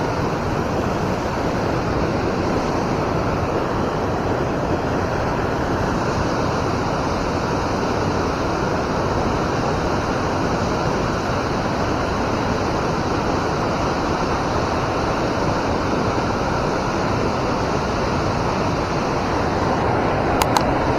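Steady, unbroken rush of flowing river water. A couple of light clicks come near the end.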